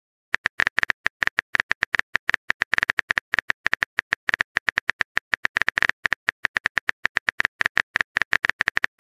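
Chat-app keyboard typing sound effect: a fast, uneven run of light clicks, several a second, playing while the next message is typed out.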